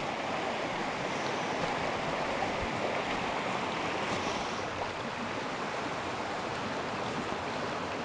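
Small shallow stream running over stones, a steady rush of water.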